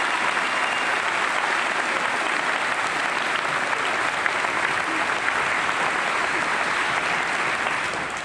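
Large audience applauding, a steady dense clapping that fades just before the end.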